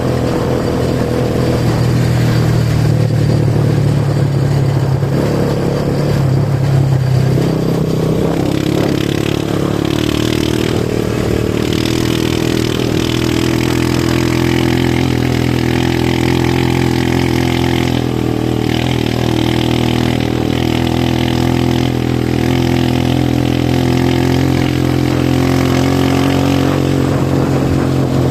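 An engine running steadily, its pitch shifting slightly now and then.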